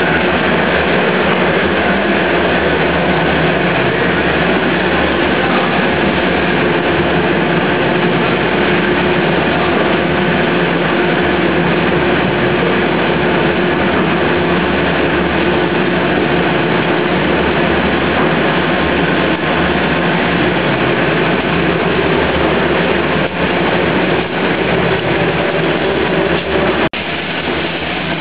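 Pet food production line machinery running steadily: a loud, continuous mechanical drone with a constant hum, with a short dip in level near the end.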